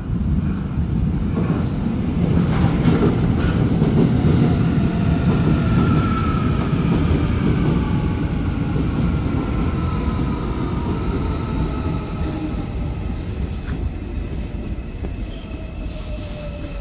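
Seoul Metro Line 1 electric commuter train pulling into the station and braking: a heavy rumble of wheels on rails, with an electric whine from the traction motors that falls steadily in pitch as the train slows. The sound swells early, then slowly fades.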